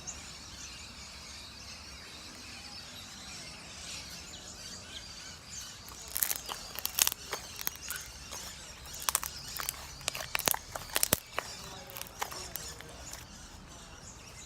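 Outdoor background with faint bird chirps. From about six seconds in comes an irregular run of sharp clicks and knocks, which fits someone bouncing on a trampoline.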